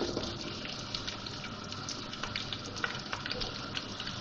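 Sliced onions sizzling in hot oil in a pan: a steady hiss with many small crackles.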